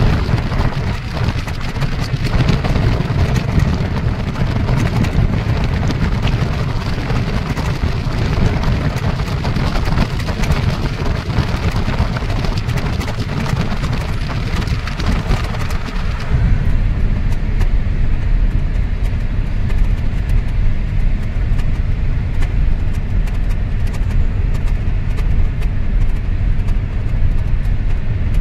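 Wind and road noise of a car driving at speed, heard from inside the cabin: a loud rushing hiss that drops away about halfway through, leaving a lower steady rumble.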